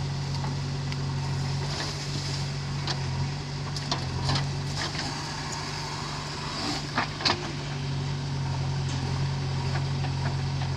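Diesel engine of a JCB 3DX backhoe loader running steadily as it loads mud, with a few sharp knocks about four seconds in and again about seven seconds in.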